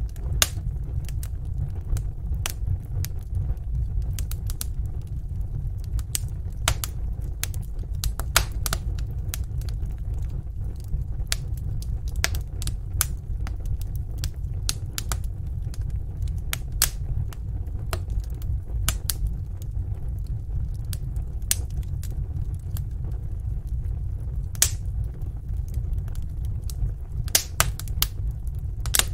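Wood fire burning in a fireplace: irregular sharp crackles and pops, several a second, over a steady low rumble of the flames.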